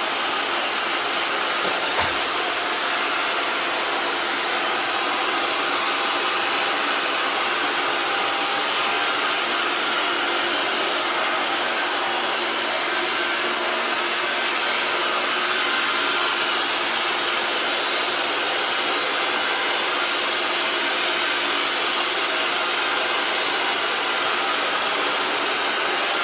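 Robot vacuum cleaner running, a loud steady whir with a thin high whine over it. A single short knock about two seconds in.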